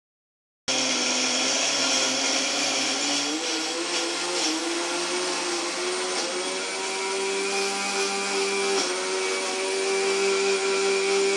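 Electric mixer grinder running, grinding soaked chana dal into a paste. It starts suddenly just under a second in, and its steady motor hum rises slightly in pitch about three seconds in, then holds.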